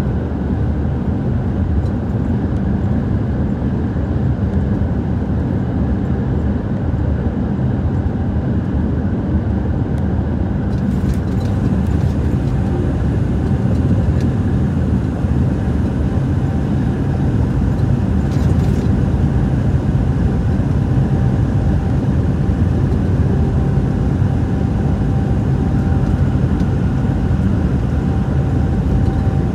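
Steady low rumble of a road vehicle in motion: engine and road noise, with a couple of faint clicks about a third and two-thirds of the way through.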